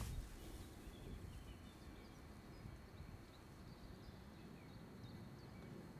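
Quiet outdoor ambience: a low steady rumble with faint, scattered bird chirps.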